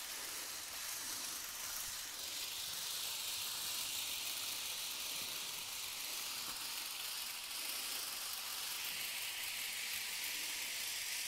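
Bachmann N scale Santa Fe 4-8-4 Northern steam locomotive and its freight cars running around a small oval of track: the tiny motor and the wheels on the rails make a steady, high hiss.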